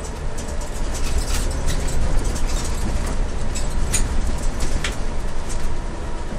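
Scania CN280UB city bus driving, heard from inside the passenger cabin: a steady low engine and road rumble that grows a little louder about a second in, with a few sharp clicks over it.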